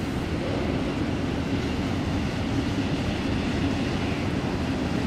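Sydney Trains double-deck electric suburban train running along the tracks, a steady low rumble.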